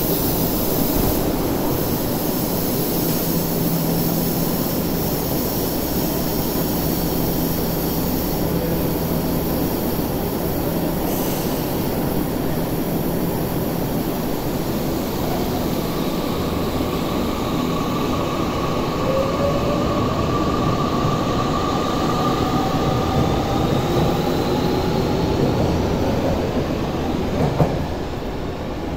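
Electric subway train pulling out of an underground platform. Steady rumble and rail noise, then from about halfway a motor whine that climbs slowly in pitch as the train picks up speed. There is a short sharp knock near the end.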